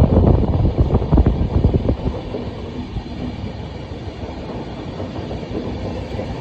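Indian Railways train running on the track: a loud low rumble with a clatter of wheels over the rails for about the first two seconds, then settling into a quieter, steady rumble.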